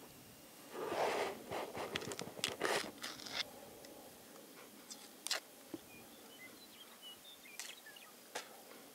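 The tough, dark rind of a prairie turnip root being torn off with teeth and fingers: a cluster of scraping, tearing sounds in the first few seconds, then a few separate sharp clicks.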